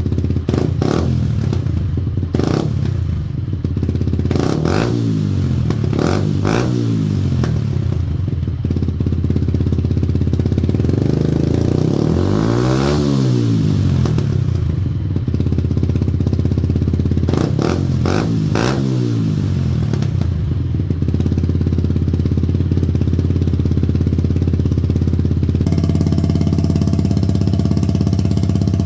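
Yamaha YZF-R125 motorcycle's single-cylinder 125 cc four-stroke engine idling through a test exhaust, blipped up and back down several times, with one longer rev around the middle. The sound changes abruptly near the end.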